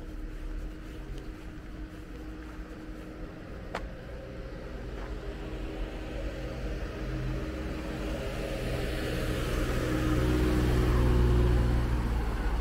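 A car approaching and passing close by, its engine and tyre rumble building steadily louder to a peak near the end, then starting to fade.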